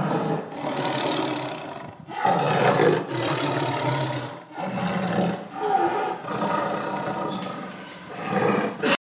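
Tiger roaring: a run of calls with brief breaks between them, cut off abruptly near the end.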